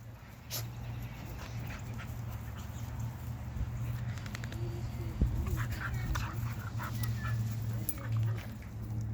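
A pet dog whimpering softly, with scattered small clicks and one thump about five seconds in, over a steady low hum.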